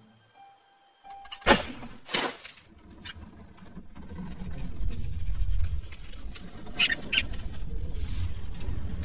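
Cartoon sound effects: two sudden sharp swishing noises about a second and a half and two seconds in, then a low rumble that builds, with short rodent-like squeaks near the end.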